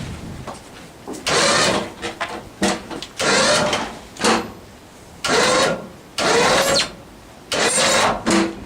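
Log winch motor run in short repeated bursts, about one a second, as it pulls a big log over to flip it. Each burst lasts half a second to a second and rises in pitch as it starts.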